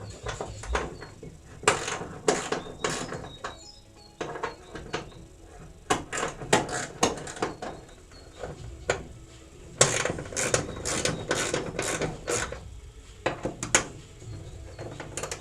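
Hand socket ratchet clicking in short runs as bolts are undone, mixed with scattered sharp clicks and knocks of tools on metal.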